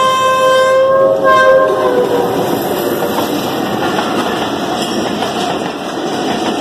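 Diesel locomotive horn: a long blast ends about a second in, then a short second blast falls slightly in pitch as the engine goes by. After that comes the rumble and wheel clatter of passenger coaches passing close by on the track.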